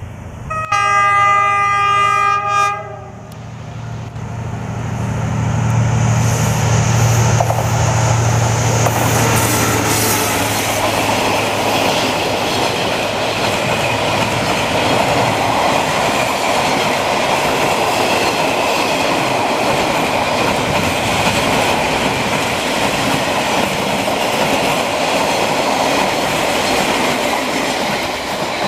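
Diesel locomotive gives one horn blast of about two seconds, then its engine hums deeply as it passes close by. A long string of container wagons follows with steady wheel-on-rail rolling noise and clickety-clack over the rail joints.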